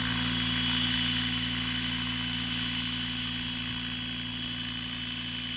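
Align T-Rex 800 radio-controlled helicopter in flight: a steady high whine from its motor and rotors over a lower hum, growing somewhat fainter about four seconds in as it flies away.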